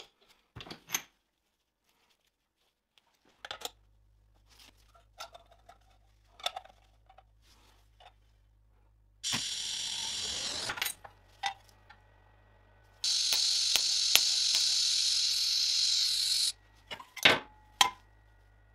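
TIG welding arc hissing in two runs, a short one of about a second and a half and a longer one of about three and a half seconds, over the steady low hum of the welding machine. Light metal clicks and knocks from handling the workpiece come before and after.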